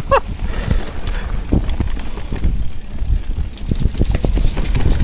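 Mountain bike riding over rough trail: a steady rumble of tyres and ground with irregular clatter and knocks from the bike, and wind on the microphone.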